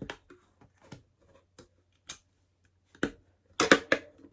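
LEGO plastic bricks clicking and clattering as they are handled and pressed together, with a quicker, louder run of clatter near the end.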